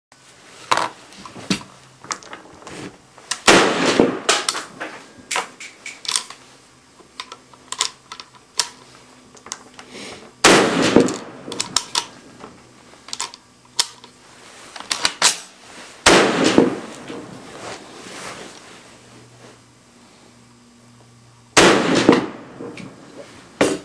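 SKS semi-automatic rifles, 7.62×39mm, firing. Four loud shots come several seconds apart, each echoing briefly, with many fainter sharp cracks and clicks between them.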